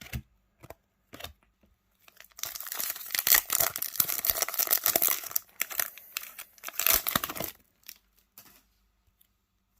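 A trading card pack's wrapper being torn open and crinkled: a crackly tearing noise lasting about five seconds, starting a couple of seconds in, after a few light clicks.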